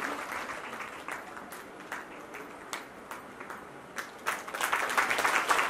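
Audience applauding, dying away to a few scattered claps, then building up again about four seconds in.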